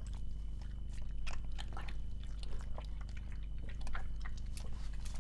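Pug chewing a small piece of dry saucisson, an irregular run of short wet clicks and smacks.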